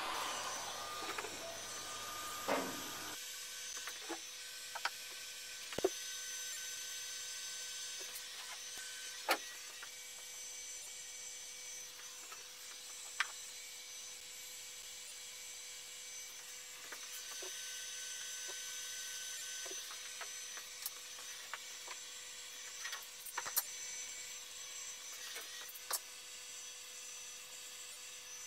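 Electric heat gun blowing steadily for about the first three seconds, then switched off. After that come scattered wooden knocks and clicks as burl wood pieces are set down in a mold, over a faint steady hum.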